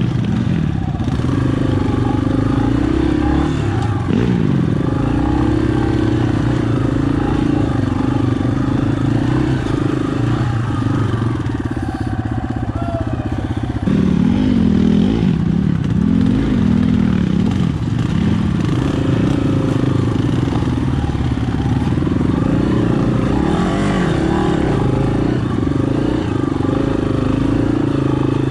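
Dirt bike engine running at low speed, its pitch rising and falling with the throttle, most noticeably about halfway through.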